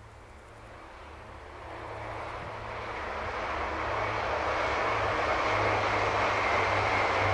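Two coupled regional multiple-unit trains approaching, their running noise growing steadily louder, with a steady low hum and a thin high whine coming in near the end.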